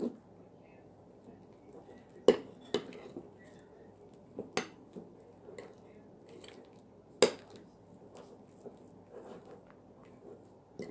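Metal utensil stirring thick glue-and-shaving-cream slime in a ceramic bowl, clinking sharply against the bowl's side now and then, loudest about two and seven seconds in.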